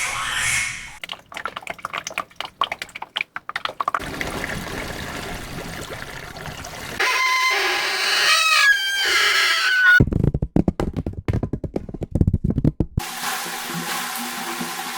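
A run of separate pipe and flow recordings, each a few seconds long: a dense rapid crackle, then an even rush of flow, then wavering, gliding whistle tones over the flow, then a low gurgling rumble, and from about thirteen seconds in a steady flow noise with a held resonant drone.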